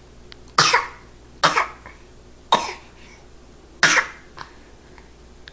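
A person coughing: four short coughs about a second apart.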